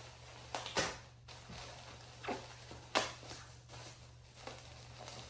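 Bubble wrap crinkling and rustling as it is handled and pulled open, in a few irregular short crackles.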